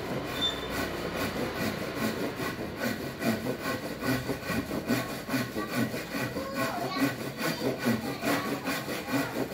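Hand saw, the Hasston Super Saw Jet Cut, crosscutting a wooden beam with quick, regular back-and-forth strokes. Its teeth rasp through the wood on each stroke.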